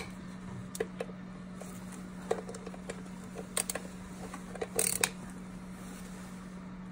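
Scattered light clicks and knocks of gloved hands handling an antifreeze hose and parts around a throttle body, loudest in a short cluster about five seconds in, over a steady low hum.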